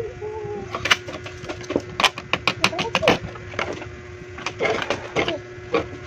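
Coins clinking as they are picked up and stacked by hand into columns: quick runs of sharp metallic clicks, thickest in the first half.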